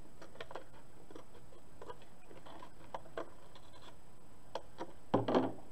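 Scissors snipping through a paper plate: faint, separate snips and clicks spaced irregularly as the blades work around a circular eye hole, with a louder sound about five seconds in.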